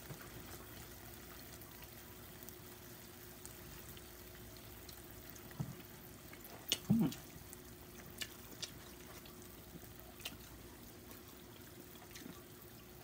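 Quiet eating sounds as a sauced chicken piece is bitten into: a few faint mouth clicks and a short hummed "mm" about seven seconds in, over a steady low hum and hiss.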